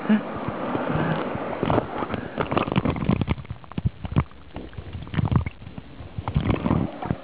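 Water sloshing and gurgling around a camera held at the waterline, with many short, sharp splashes. About four seconds in the camera goes under the surface and the sound turns muffled and underwater.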